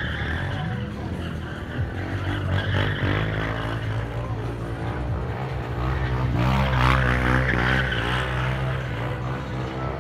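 Quad bike engine running hard as it drifts in circles, with tyres skidding on the asphalt.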